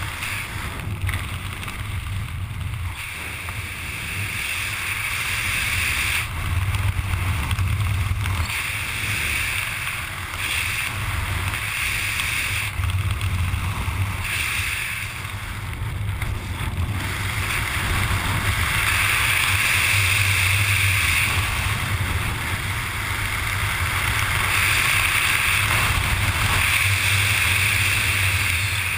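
Wind rushing over a helmet-mounted GoPro's microphone during flight under an open parachute canopy, a steady noise that swells and eases every few seconds.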